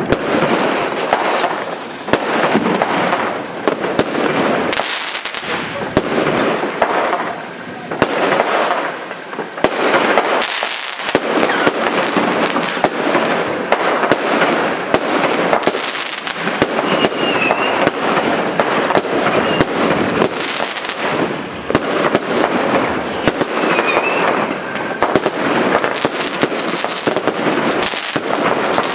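Consumer firework cakes firing a continuous volley of aerial shells: rapid, loud bangs with crackling bursts overhead, without a pause.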